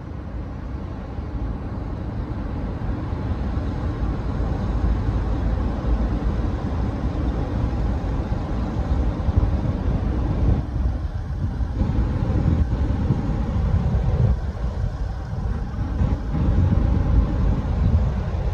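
Wind buffeting the microphone in a low, uneven rumble that builds over the first few seconds. Under it is a faint steady hum from the moored cruise ship's running machinery.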